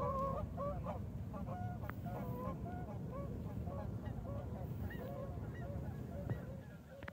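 A flock of geese honking, many short overlapping calls that thin out near the end, over a steady low rumble.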